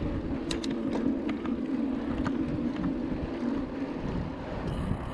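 Wind rumbling on the microphone and the rattle of a mountain bike being ridden over a rough track, with a few light clicks about half a second in.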